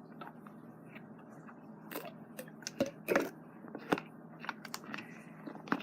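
Fork stirring slime made of glue, shaving cream and saline in a bowl: irregular sticky clicks and scrapes, the loudest a little after three seconds in.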